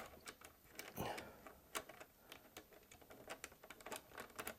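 Faint, irregular small clicks and taps of a rack screw being worked into a loose cage nut in a rack rail, catching as it struggles to thread.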